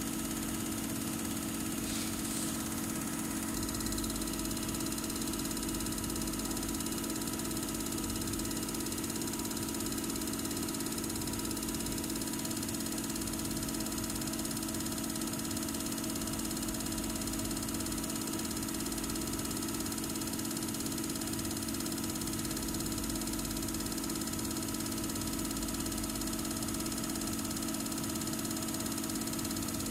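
Common-rail injector test bench running steadily during a Denso injector flow test, its high-pressure pump turning at 500 rpm with the rail held at 80 MPa. It makes an even machine hum with several steady tones.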